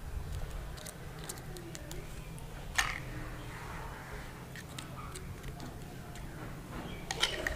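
Scattered light clicks and taps of a spoon and dish while mayonnaise sauce is spooned onto burgers, the sharpest a little under three seconds in, over faint low background noise.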